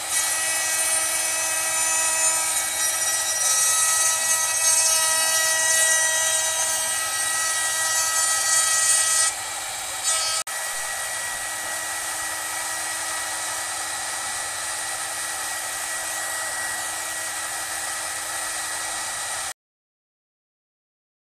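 CNC router spindle milling a bowl into a hardwood block: a steady high whine with the rasp of the bit cutting wood. It is louder during the roughing pass, then changes abruptly about ten seconds in to a steadier, slightly quieter finishing cut, and cuts off to silence about two seconds before the end.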